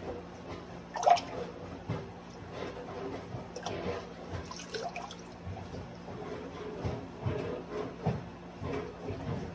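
Water splashing and gurgling from a washing machine drain hose into a laundry wash tub, over a steady low hum, with a sharper splash or knock about a second in. The washer is draining again after its hose was lifted out of the backed-up tub.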